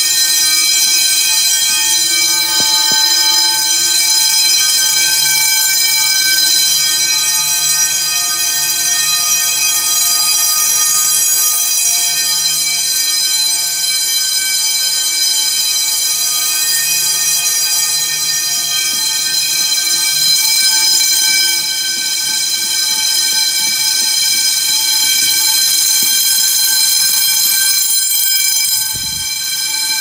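Fire alarm bells ringing loudly and continuously, the building's alarm system sounding in drill mode.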